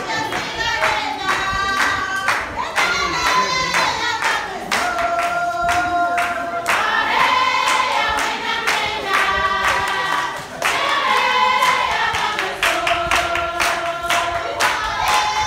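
A group of women singing a song together, with rhythmic hand clapping keeping the beat.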